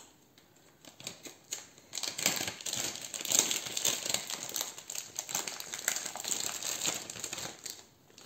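A thin clear plastic bag being handled and opened, crinkling and crackling with many quick small crackles. It starts about two seconds in and stops shortly before the end.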